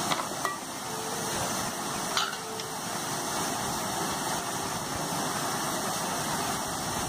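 Steady low rumble and hiss of background noise, with a couple of faint light clicks.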